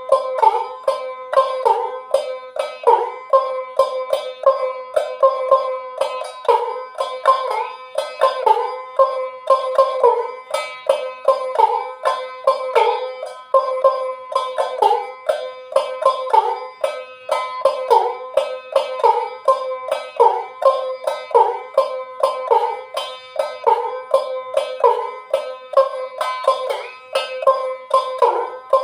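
Ektara, the one-string Bengali folk drone lute, plucked in a quick, steady rhythm. Many notes slide in pitch before settling on the same ringing tone.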